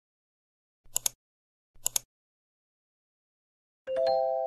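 Quick double clicks repeated three times about a second apart, then a single chime struck near the end that rings on with a few steady tones and slowly fades, the intro of a music track.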